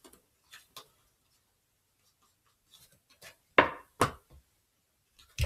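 Tarot cards being handled and set down on a table: a few soft clicks and taps, with two sharper taps about three and a half and four seconds in.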